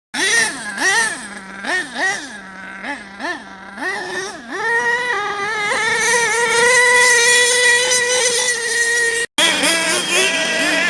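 Small two-stroke nitro engine of an RC truck revved in quick blips, then held at high revs for several seconds with a high, steady whine. The sound cuts out for an instant about nine seconds in, then the revving blips resume.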